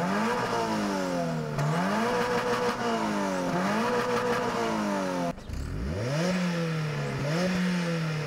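Mazda MX-5 and Subaru BRZ exhausts revved in turn from a standstill, each engine note rising and falling with repeated throttle blips. After about five seconds the sound breaks off briefly and the second car is revved the same way.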